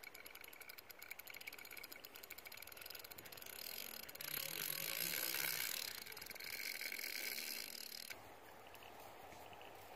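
Spinning fishing reel clicking rapidly while a hooked carp is played on the line, louder in the middle stretch. The clicking stops a couple of seconds before the end, leaving a soft hiss.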